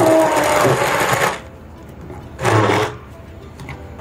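Electric hand blender running in short bursts: one of about a second and a half at the start, then a short burst near three seconds in.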